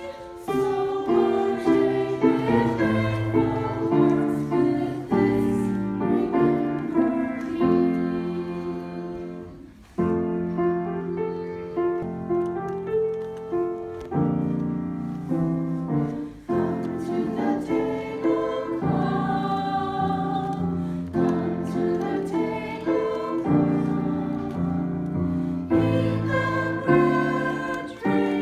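Small church choir singing in parts with piano accompaniment, held notes and chords shifting every second or so. The music breaks off briefly about ten seconds in, then resumes.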